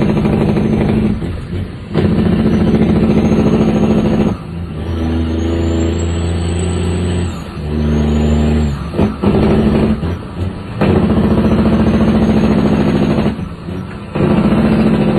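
Heavy truck's diesel engine, heard from inside the cab, pulling through the gears of a manual gearbox. The engine note drops away briefly at each shift, about five times, and comes back at a new pitch.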